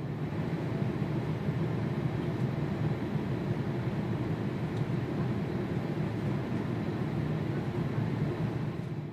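Airliner cabin noise in flight: a steady low rumble of engine and airflow heard from inside the cabin, fading in and out at the ends.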